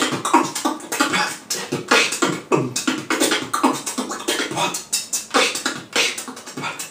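Vocal beatboxing: a fast, dense run of mouth-made drum hits and clicks, mixed with bass sounds that swoop down in pitch.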